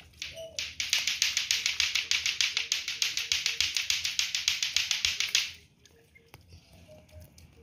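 Crested ducklings dabbling their bills in a bowl of grain: a fast, even clicking of about ten a second that starts just under a second in and stops abruptly about five and a half seconds in. A few faint duckling peeps sound around it.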